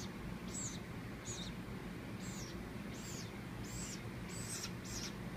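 Baby woodpecker giving a quick series of short, high-pitched calls, about two a second. These are the insistent calls of a nestling wanting to be fed.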